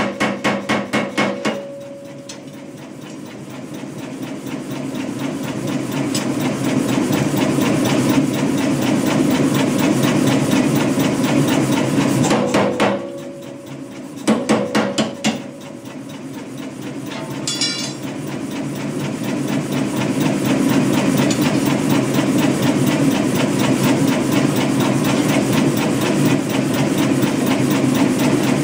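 Kuhn air power hammer striking hot steel through a handheld top tool in rapid repeated blows. At the start, and briefly again around the middle, the blows are separate, about five a second. The rest is a faster, blurred-together pounding that grows louder.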